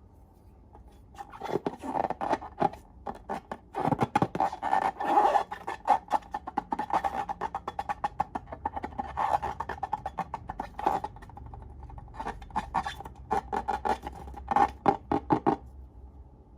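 Slime being squeezed and stretched by hand, with dense, irregular wet clicking and popping. It starts about a second in and stops shortly before the end.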